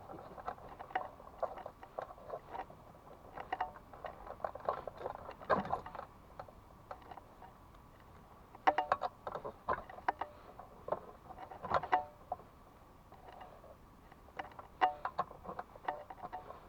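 Scattered clicks and clinks of small hard objects being handled, coming in short bunches with pauses between.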